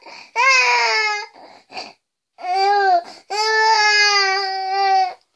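Sick baby crying in long wails: a cry in the first second, a short whimper, then two more wails, the last and longest lasting almost two seconds, with short catches of breath between. The fussing of a baby kept awake by a cough.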